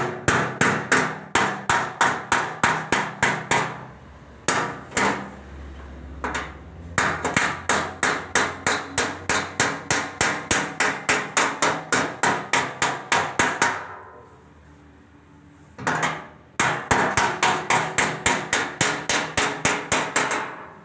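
Hammer blows on the sheet metal of a car bonnet, in steady runs of about three or four strikes a second, broken by a few short pauses.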